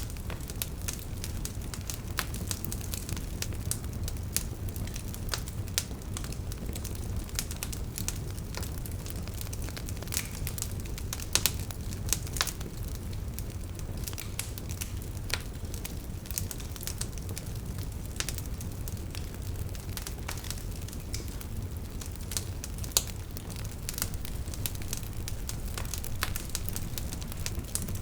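Wood fire burning in a fireplace: logs crackling and popping at irregular intervals over a steady low rumble of the flames.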